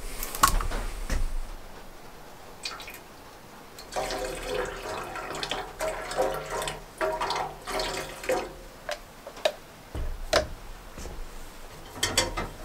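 Water poured from a plastic bottle into an aluminium coffee pot, for about six seconds from about four seconds in. It is cold water added to the brewed cowboy coffee to bring it down to drinking temperature. Clinks and knocks of the pot and bottle being handled come before and after the pour.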